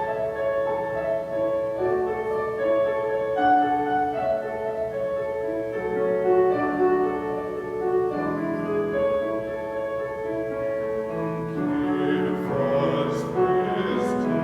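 Slow instrumental music on a keyboard instrument, playing long held chords.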